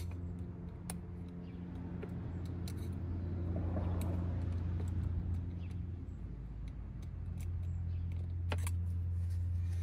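Scattered light clicks of small metal parts being handled as the electric motor of a Volvo Penta SX-A power trim/tilt pump is fitted back together, over a steady low hum.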